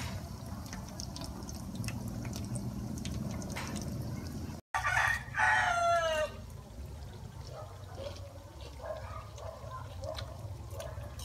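A loud animal call, about a second long and falling in pitch, about five seconds in, over a low steady background with scattered faint clicks.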